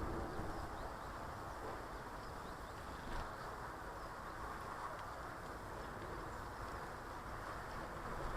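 Garden ambience: a steady rumble of distant traffic with faint, brief bird chirps over it, and a single short tap about three seconds in.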